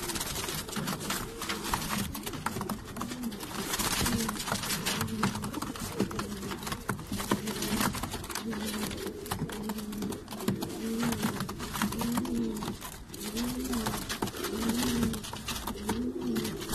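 Domestic fancy pigeons cooing: repeated low, arching coos that come about once a second in the second half, with scattered sharp clicks and wing flutters from the birds moving about the loft.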